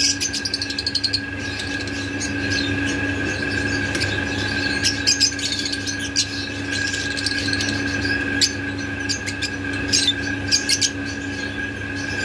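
Fischer's lovebird giving short, sharp, high chirps, a quick rattling run right at the start, then scattered calls about five seconds in and again between eight and eleven seconds, over a steady hum.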